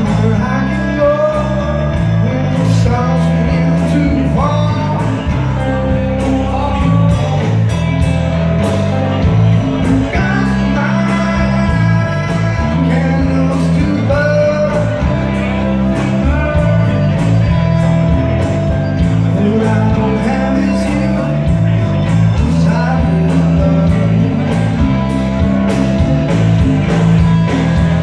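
Live rock band playing: electric guitars, bass guitar, drum kit and hand percussion, with a steady beat.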